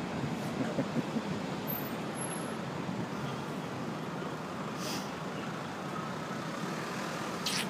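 Steady town-street road traffic noise, with a brief hiss about five seconds in and another near the end.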